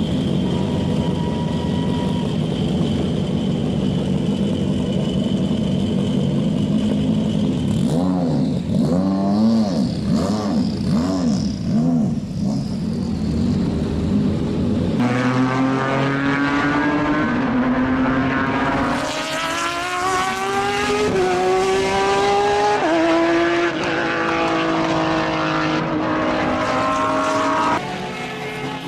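GT race car engines: a steady engine note for the first several seconds, then cars sweeping past with a rising and falling pitch, then an engine accelerating hard through the gears, its pitch climbing and dropping back at each upshift every two to three seconds.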